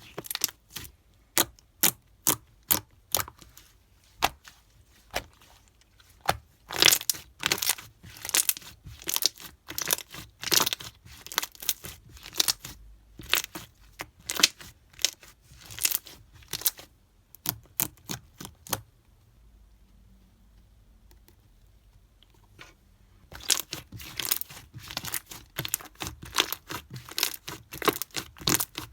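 Slime being played with by hand: a string of sharp popping clicks and crackles, falling quiet for a few seconds just before the twentieth second, then resuming.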